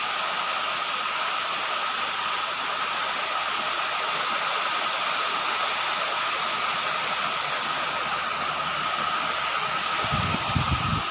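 Steady hiss with a constant high whine running through it, with a few low thumps about ten seconds in.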